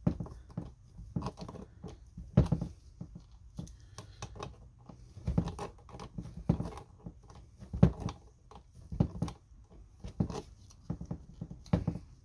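Irregular metallic clicks and scrapes of a hand tool gripping and turning a seized casing stud out of an e-bike mid-drive motor, a few strokes at a time with short pauses.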